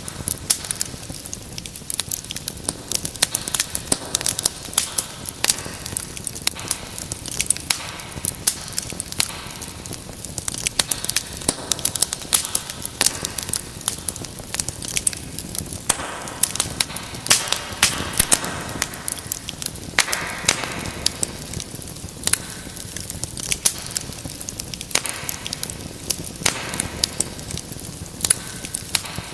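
Wood fire in a fireplace crackling: frequent sharp pops and snaps over a steady low hiss of burning, with short stretches of louder hissing now and then.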